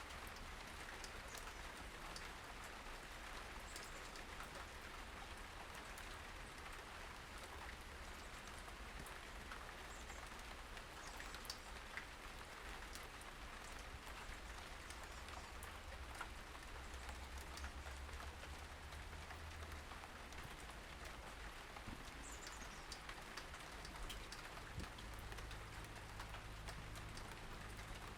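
Light rain pattering steadily as many fine drips, with a low rumble underneath and a few faint bird chirps.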